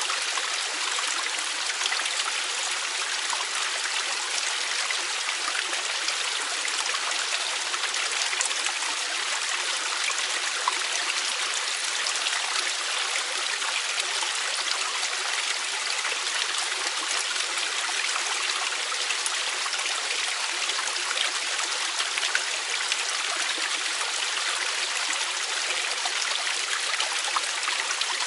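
Mountain valley stream flowing over rocks, a steady rushing and splashing with small scattered droplet clicks.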